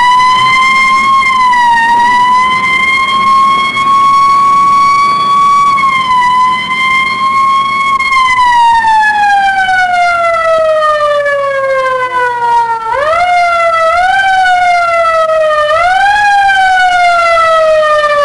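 Loud police emergency car siren wailing. It holds a high pitch for several seconds with slight dips, then slowly winds down. About two thirds of the way through it switches to repeated short wails that rise quickly and fall away.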